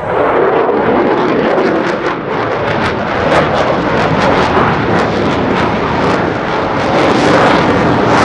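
Military jet fighter's engines, suddenly very loud and staying loud: a dense jet rush with a crackling rasp running through it.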